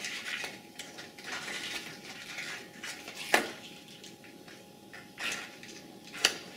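Latex modelling balloon being stretched and rubbed between the fingers while a knot is tied in its uninflated tip, an irregular rubbing rustle with two sharp clicks, one a little past halfway and one near the end.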